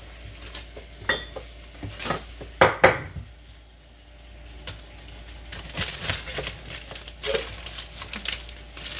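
Pots, pans and metal utensils clattering and knocking as a pan is fetched, with the loudest knocks about two and a half to three seconds in and lighter clinks through the second half.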